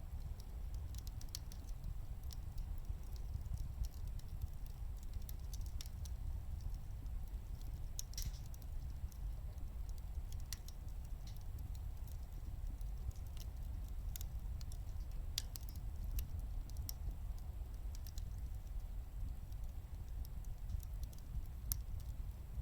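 Wood burning in a wood gas stove, crackling with irregular sharp pops and ticks over a steady low rumble.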